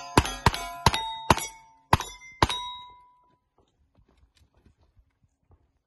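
Revolver shots fired at steel plates in a quick string of about six, most of them followed by the ring of a hit steel plate. The shots come in two groups, four close together and then two slower ones. They stop about halfway through, and the last ring fades away.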